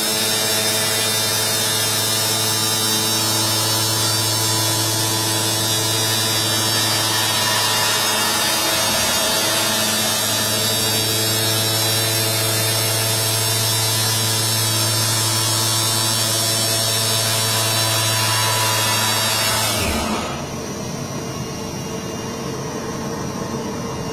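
CNC gasket cutting table running: a loud, steady electric buzz with hiss. About twenty seconds in the buzz cuts off and a quieter steady hum carries on.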